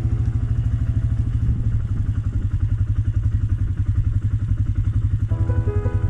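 Small engine of a farm bike running at low speed behind a herd of cows, a steady rapid putter. Background music fades out about two seconds in and comes back near the end.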